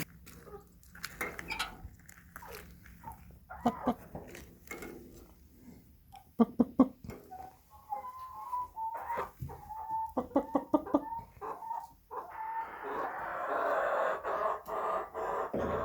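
Domestic chickens clucking in a run of short calls, with scattered scratchy clicks. A denser rushing noise comes in about three-quarters of the way through.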